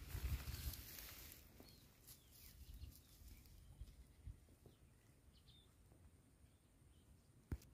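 Faint open-field ambience with a few distant bird chirps. Footsteps rustle through the grass in the first second, and a single sharp click comes near the end.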